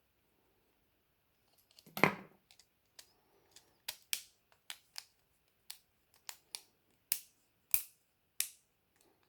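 Small hand tools and plastic and metal phone parts clicking and tapping during reassembly. There is one louder knock about two seconds in, then about a dozen sharp, irregular clicks.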